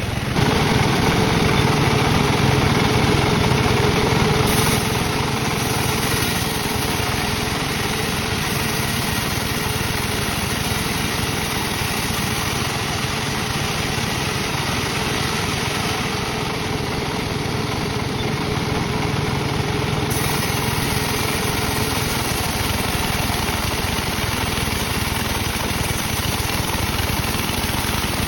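Sawmill machinery running steadily as teak is sawn, louder for the first four seconds and then steady.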